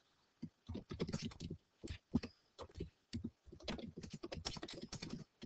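Typing on a computer keyboard: quick runs of key clicks, starting about half a second in, with short pauses between bursts.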